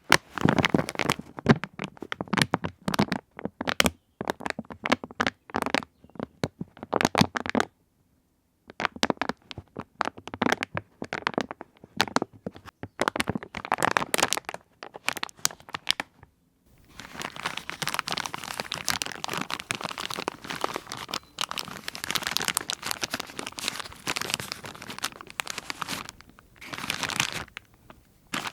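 Plastic sheeting being crinkled and crumpled in sharp crackling bursts, with a pause of about a second some eight seconds in. From about sixteen seconds in it becomes a denser, continuous rustling crinkle.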